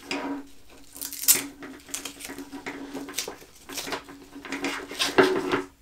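Agilite K19 plate carrier being handled and its straps adjusted: irregular rustling of nylon webbing with scrapes and small clicks from its buckles and hardware.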